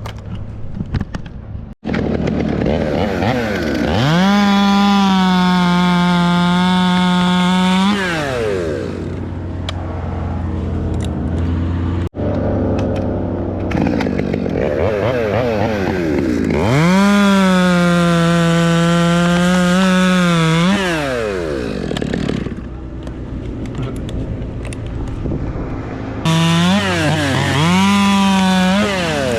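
Two-stroke chainsaw revved up to full throttle and held there for about four seconds, dropped back to idle, then revved and held again for about four seconds. Near the end it is blipped up and down several times.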